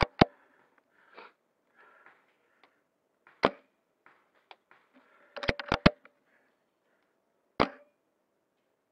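Sharp mechanical clacks from a bolt-action SRS airsoft sniper rifle at close range: shots and bolt handling. Single clacks come about a second in, halfway through and near the end, with a quick run of three just after the middle.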